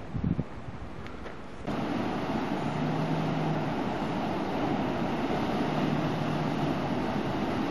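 Ocean surf breaking and washing over rocks, a steady rush of water that jumps louder about two seconds in. Wind buffets the microphone near the start.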